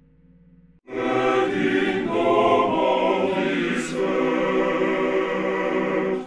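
Sung vocals, a layered choir-like phrase, played through a Reco-Synth analog stereo spring reverb, then heard as the dry original sound from about four seconds in. The singing starts abruptly about a second in and stops sharply at the end.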